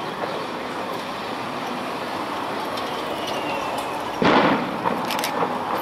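A firework going off with one loud bang about four seconds in, followed by a few faint cracks, over steady outdoor background noise.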